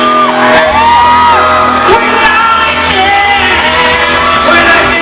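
Voices singing over a sustained instrumental chord, with shouts.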